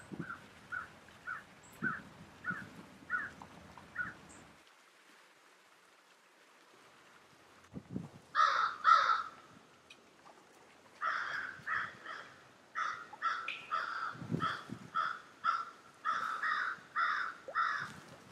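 Crows cawing in repeated runs: a fainter series of caws, then after a pause two loud caws and a long series of loud caws at about two a second.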